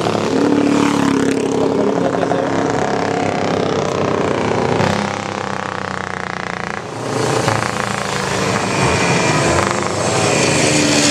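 Vintage racing motorcycle engines revving as bikes ride past one after another, the pitch rising and falling. The sound changes abruptly about seven seconds in.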